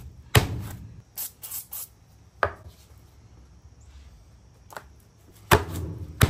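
Meat mallet pounding slices of pork tenderloin flat through plastic wrap on a wooden cutting board. About eight irregular thuds come in two clusters, one near the start and one near the end, with a quiet stretch between them.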